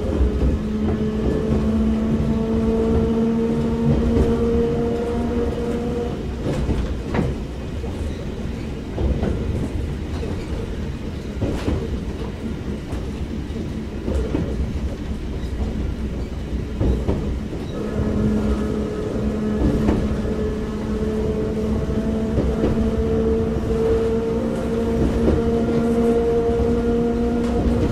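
Running sound inside a KuMoHa 61 old-type electric railcar powering up an uphill grade. A traction motor hum rises slowly in pitch, drops out about six seconds in and comes back at about eighteen seconds. Under it runs a steady wheel-on-rail rumble with occasional rail-joint clicks.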